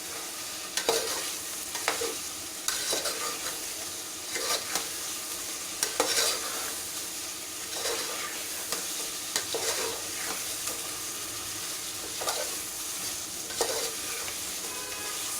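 Chicken and ground spice masala sizzling steadily in a pan on a high flame, stirred continuously, with a utensil scraping the pan about every one to two seconds.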